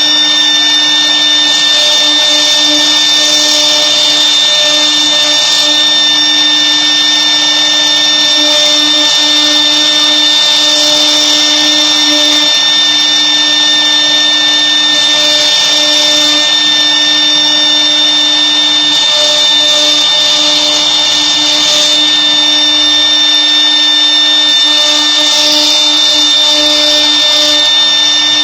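CNC router spindle motor running steadily at high speed, with a constant high-pitched whine.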